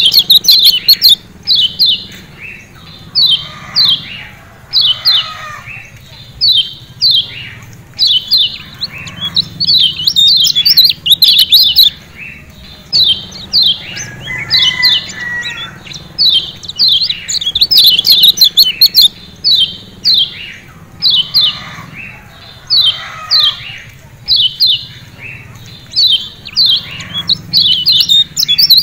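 Lombok yellow white-eye (kecial kuning) giving its repeated sharp 'ciak ciak' calls: clusters of short, quickly falling notes, one cluster every second or two.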